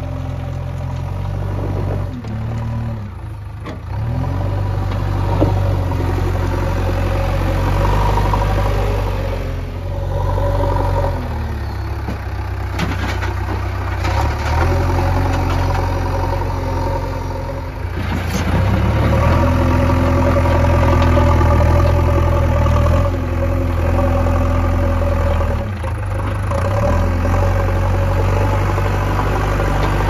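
JCB 3DX backhoe loader's diesel engine running, its note rising and falling several times as it works the loader bucket under hydraulic load.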